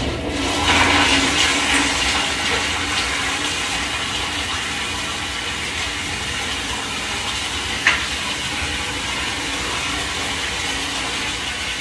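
Toilet flushing: a loud, steady rush of water that is strongest in the first couple of seconds, with a sharp click about eight seconds in.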